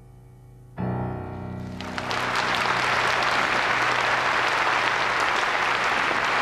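Closing piano chord struck and left to ring, ending the song; about two seconds in, audience applause breaks out and goes on steadily.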